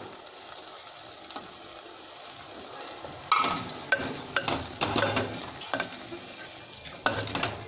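A wooden spoon stirring a thick, wet curry of leafy greens and chickpeas in an unglazed clay pot: irregular scraping and clunking strokes against the clay that begin about three seconds in, over the faint steady sizzle of the curry cooking.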